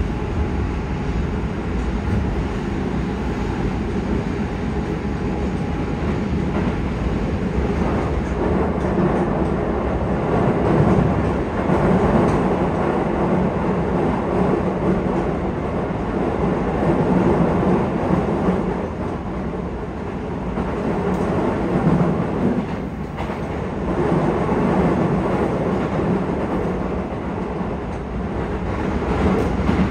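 Yokohama Municipal Subway 4000 series train, Mitsubishi hybrid SiC-VVVF control, running between stations, heard from inside the car. A continuous rumble of wheels on rail that swells a little about a third of the way in and eases near the two-thirds mark.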